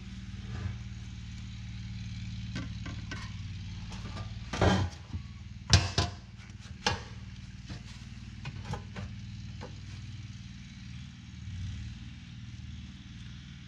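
Parts of a car's quarter-window assembly (glass, regulator and steel frame) knocking and clicking as they are fitted back together, with the loudest knocks about five to seven seconds in. A steady low hum runs underneath.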